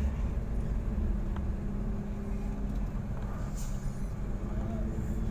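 Large truck's diesel engine running at low speed, a steady low rumble with a constant hum.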